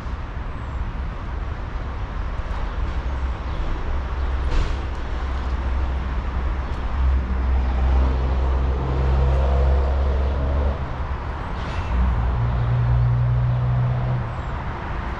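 Steady rumble of road traffic, with vehicle engines passing louder in the second half.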